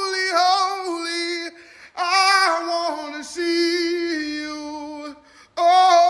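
A woman singing a worship song solo, holding long sustained notes, with two short pauses about one and a half and five seconds in.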